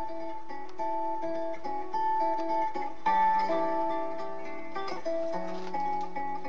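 Guitar playing the instrumental introduction of a song, single melodic notes picked in a steady, unhurried pattern with no voice.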